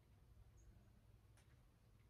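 Near silence: low room hum, with one faint click about a second and a half in.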